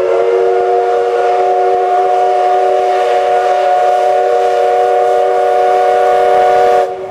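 A C11 steam locomotive's whistle blowing one long blast: several steady notes sounding together as a chord, held for about seven seconds and cut off sharply near the end.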